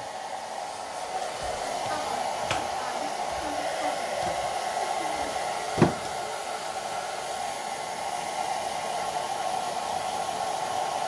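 Handheld hair dryer blowing steadily on a freshly bathed dog's damp coat. A single sharp knock sounds about halfway through.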